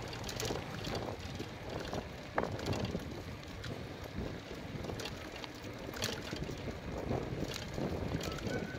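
Wind noise on the microphone while riding along a concrete road, with tyre noise and frequent small clicks and rattles.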